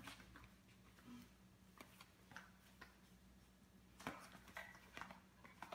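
Faint scattered taps and scuffs of a small dog stepping in newly fitted dog boots on a concrete floor, with a few sharper clicks about four seconds in. A low steady hum sits underneath.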